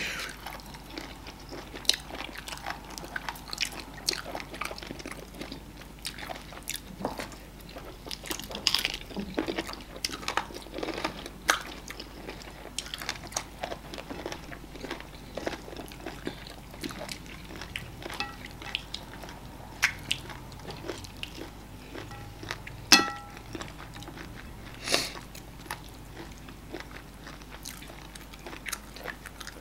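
Close-miked eating sounds of two people eating amala (brown fufu) with ogbono soup and assorted meat by hand: irregular wet chewing clicks and smacks, with a couple of sharper, louder snaps in the latter half.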